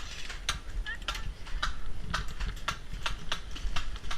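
Airsoft guns firing: a run of sharp, irregular snapping shots, roughly three a second.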